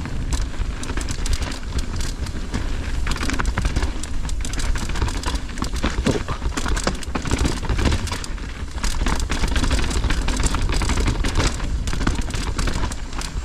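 Mountain bike riding down a dirt trail: tyres rolling over dirt and rocks and the bike rattling, with many sharp clicks throughout, over a steady low wind rumble.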